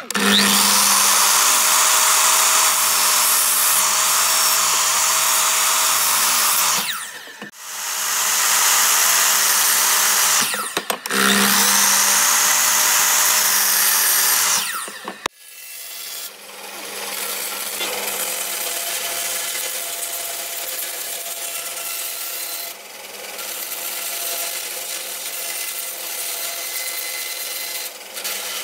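Sliding compound miter saw motor run up and cutting through stacked wood strips, three runs of several seconds each with short spin-down gaps between. From about halfway, a bandsaw runs steadily and more quietly while it cuts a curved wooden piece.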